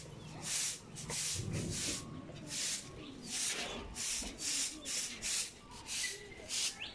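Steady rhythm of scratchy swishing strokes, about two a second.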